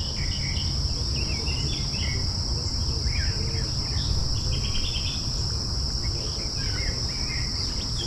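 Steady high-pitched insect chorus, cricket-like, with scattered short bird chirps over a constant low rumble.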